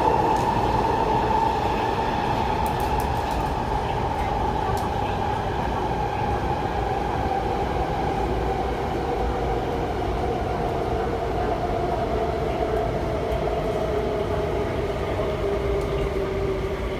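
MTR SP1900 (IKK) electric train running with rail rumble, its traction motors whining in two tones that fall slowly in pitch as the train slows.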